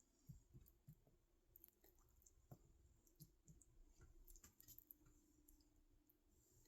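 Near silence with faint, scattered clicks.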